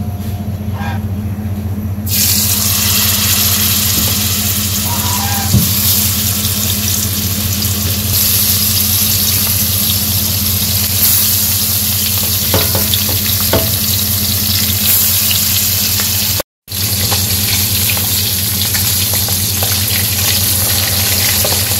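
Turmeric-and-chilli-marinated fish steaks frying in hot oil in a wok: a loud, steady sizzle that starts suddenly about two seconds in as the fish goes into the oil, with a steady low hum underneath. The sound drops out for a moment near the end.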